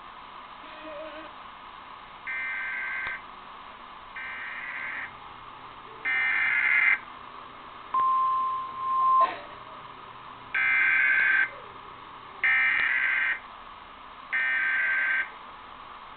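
Emergency Alert System test signal: three screeching digital data bursts, each about a second long, then a steady single tone lasting about a second, then three more data bursts.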